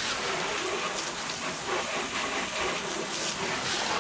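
Water spraying steadily onto the plastic bodywork of a scooter being rinsed, an even hiss that cuts off suddenly at the end.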